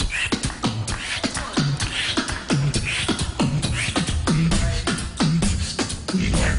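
Beatboxing into a microphone: a dance beat of mouth-made kicks, snares and quick hi-hat clicks, with short low bass notes on the beat.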